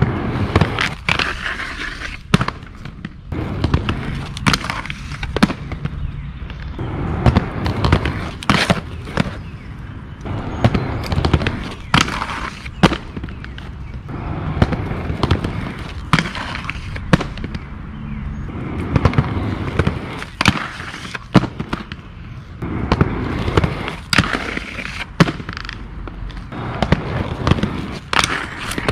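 Aggressive inline skates rolling over cracked concrete paving, with frequent sharp, irregular clacks from the wheels hitting seams and from landings. Near the end comes the crunching scrape of a skate grinding along a rough concrete ledge.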